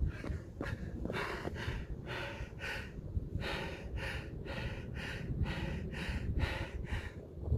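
A man panting hard and gasping for air, close to the microphone, right after running one kilometre at near two-hour-marathon pace, about 2:53. The quick breaths come about twice a second: he can't catch his breath.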